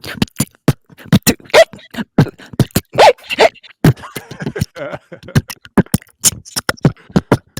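Human beatboxing: a rapid, uneven run of sharp mouth-percussion hits with short hiccup sounds worked into the beat, imitating a beatboxer with hiccups.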